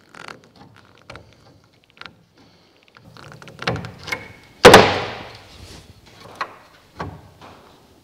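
Sheet steel being handled and fitted: a repair patch tapped and clicked against the edge of a car's roof skin, with one loud metallic bang just under five seconds in that rings on for about a second.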